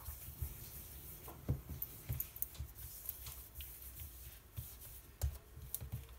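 Hands pinching off and rolling small balls of soft msemen dough on a countertop: faint scattered taps and rubbing, with a soft thump about a second and a half in and another a little after five seconds.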